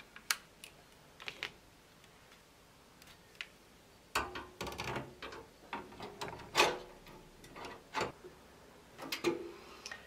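Scattered sharp clicks and knocks of metal and plastic as a GIGABYTE GeForce RTX 3050 graphics card is handled and seated in a PC case, with a denser run of knocks and rattles from about four to seven seconds in.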